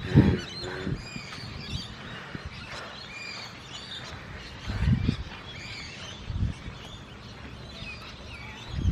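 Wild birds chirping and calling in quick, overlapping short notes. A few brief low rumbles of wind buffet the microphone.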